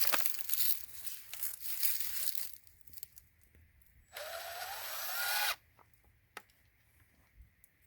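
Scraping and rustling handling noise, then a cordless drill runs for about a second and a half, its pitch rising, likely driving a screw into the new boards on the gate posts.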